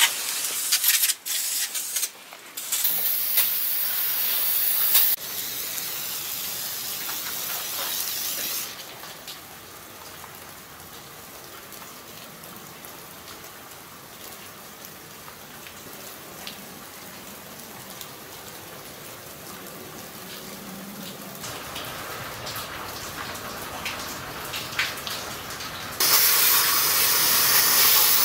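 Aerosol cleaner hissing out of a spray can in several bursts, sprayed over the parts of a Ford 8.8 differential: the ring-gear carrier, the bearings and the pinion. A quieter stretch in the middle. Near the end a loud, steady spray hiss as the cleaner is jetted through an extension straw into the axle housing.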